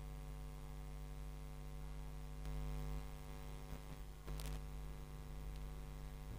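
Steady electrical hum of room tone, with two brief faint noises, about two and a half and four and a half seconds in.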